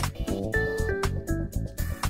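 Background music with a steady beat, a strong bass and a melody stepping between held notes.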